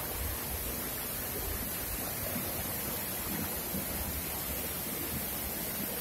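Steady rush of a waterfall and the white-water river tumbling over boulders below it, an even roar with no breaks.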